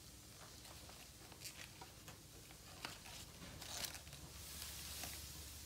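Paper being folded and creased by hand: faint scattered crackles and rustles, with a longer rustle from about four seconds in.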